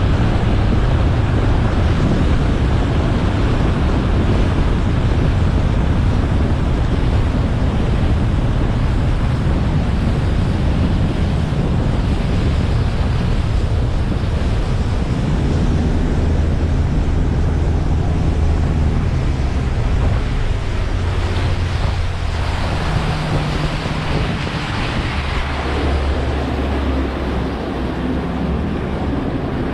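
A bass boat under way: the outboard motor drones beneath heavy wind buffeting on the microphone and rushing water. The engine note shifts pitch a few times in the second half.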